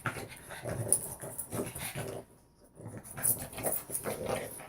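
Two dogs play-fighting: scattered dog vocal noises and scuffling, broken by a short quiet spell about halfway.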